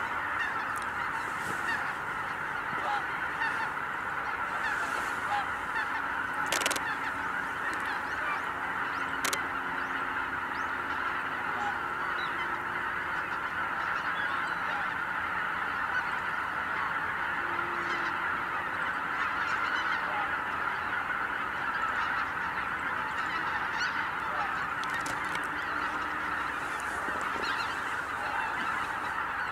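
A huge flock of greater white-fronted geese calling continuously in flight, hundreds of overlapping honks merging into one dense, steady chorus. Two brief sharp clicks stand out, about seven and nine seconds in.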